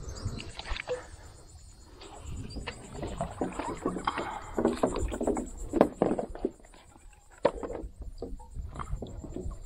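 Water sloshing and splashing around a paddleboard, with irregular knocks and clicks on the board and gear as a fish is worked out of submerged branches.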